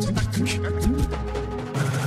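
Background music with a beat: deep drum hits that drop in pitch, a held bass note and quick hi-hat-like ticks.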